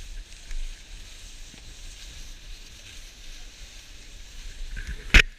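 Snowboard sliding over snow with a steady hiss, then a single sharp, loud scrape or knock near the end.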